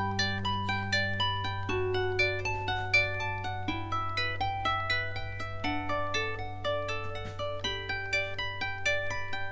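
Instrumental background music: a quick run of short plucked-string notes over a steady low note.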